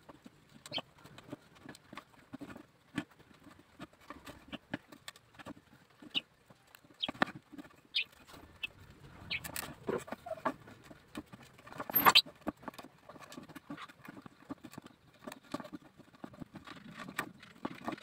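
Thin bamboo strips and rings of a small bird cage clicking and tapping against each other as they are handled and fitted by hand: scattered light ticks, with one sharper, louder click about two-thirds of the way through.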